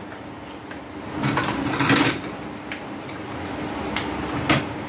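Handling noise as a microwave's resoldered relay board is fitted back into place: scattered knocks and rattles, a cluster of clatter about a second or two in, and a sharp click near the end.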